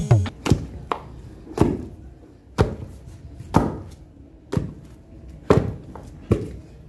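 Wooden pestle pounding cooked yam in a wooden mortar: dull, regular thuds about once a second, some in quick pairs, as the yam is beaten into pounded yam.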